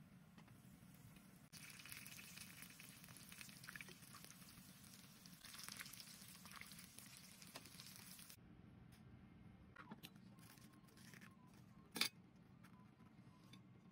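Oil sizzling steadily as breaded, cheese-filled meat rolls shallow-fry in a pan. The sizzle cuts off abruptly partway through, and a single sharp click comes near the end.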